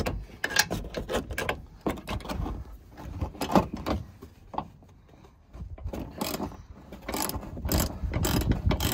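Socket ratchet clicking in quick runs as shock tower bolts are backed off, the bolts coming loose easily. The clicking pauses a little past halfway, then resumes faster.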